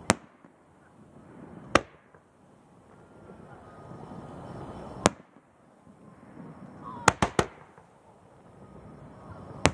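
Aerial fireworks bursting overhead in sharp bangs: single reports about a second apart, then three in quick succession about seven seconds in, and another near the end. Between the bursts, a rushing noise builds up before the bang about five seconds in.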